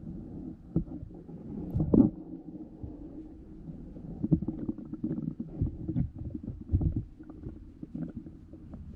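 Muffled rumble picked up by a submerged camera, with irregular dull knocks and bumps. The loudest knock comes about two seconds in, and several more fall between about four and seven seconds.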